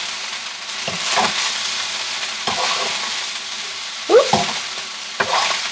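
Fried rice sizzling steadily in a hot skillet as it is stirred and tossed with a metal spatula, with several sharp scrapes and knocks of the spatula against the pan.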